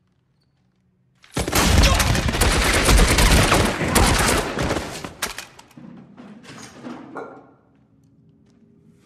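A long, dense burst of automatic gunfire, very loud, starting about a second and a half in and lasting about four seconds before it breaks off into scattered shots and fading noise.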